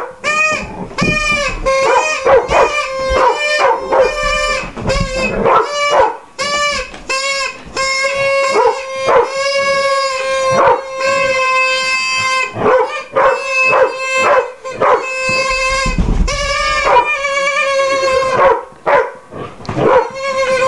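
A large white curly-coated dog barking and howling in quick, rising-and-falling yelps, about two to three a second, set off by the noise it dislikes: a steady held note blown on a small instrument at a person's mouth.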